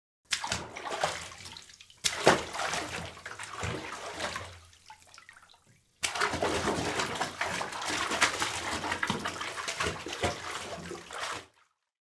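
Water splashing and sloshing, as in a bathtub, in three stretches that start abruptly about a third of a second, two seconds and six seconds in, cutting off sharply near the end.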